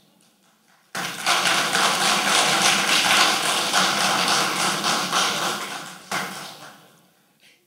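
Audience applauding, starting suddenly about a second in and dying away after about five seconds, with a smaller flurry of clapping near the end.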